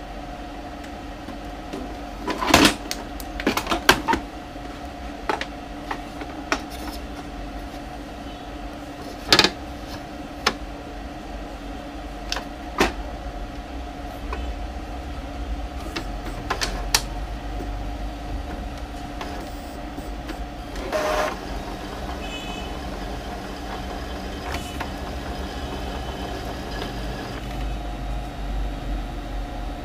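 Opened-up Epson L3110 inkjet printer mechanism running with a steady motor hum, the noisy head-carriage motor being checked, broken by a series of sharp clicks and knocks from its parts, most of them in the first half.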